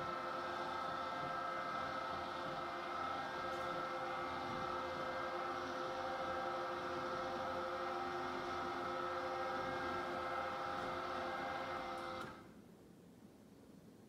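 Electric motors of two remote-controlled roller shades running with a steady hum as the shades lower, stopping suddenly near the end when the shades reach the bottom.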